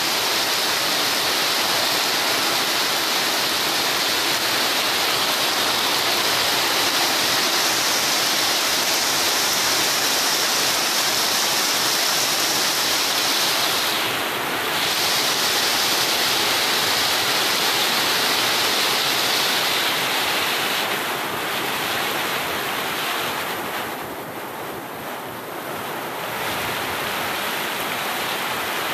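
Heavy rain pouring down onto a road and waterlogged ground, a steady dense hiss. It thins briefly about halfway through and is quieter for a couple of seconds near the end.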